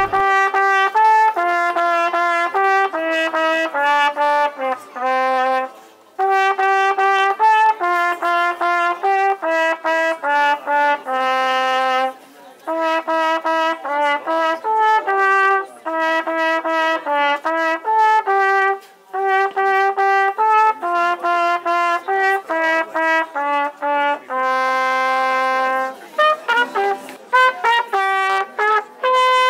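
Solo trumpet playing a melody in short phrases, with brief breaks between them and a long held note about twenty-five seconds in.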